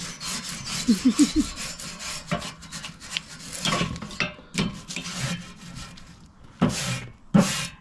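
Nylon-bristle grill brush with a metal scraper blade scraping back and forth across hot cast iron grill grates, clearing burnt-on food in a series of irregular rasping strokes.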